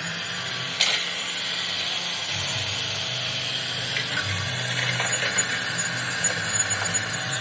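Small electric motors of a toy remote-control excavator whirring, with a sharp plastic knock about a second in as the toy topples onto its side, then a few light clicks.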